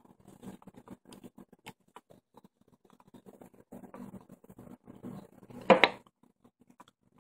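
Small clicks and scratches of fine coil wire and metal parts being handled on a rebuildable atomizer deck as the wire leads are worked around the post screws, with one short, louder sound a little under six seconds in.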